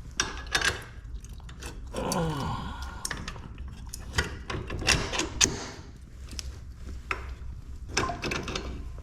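Scattered metal clicks and knocks as a replacement caster wheel and its bolts are handled and fitted to a jacked-up rolling toolbox. A short falling tone comes about two seconds in.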